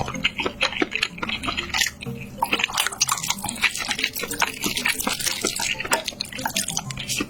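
Close-miked mukbang eating sounds: wet chewing and lip smacking in a quick run of short clicks.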